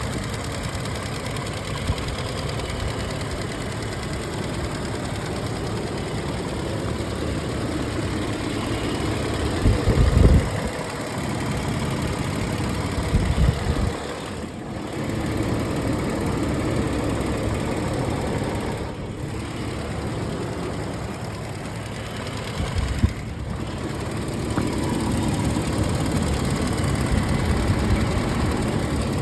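Toyota 1GR-FE 4.0 L V6 in a 2008 4Runner, running steadily with a ticking/knocking noise that the owner suspects comes from an injector, the valves or the timing chain. Two short louder low rumbles come about ten and thirteen seconds in.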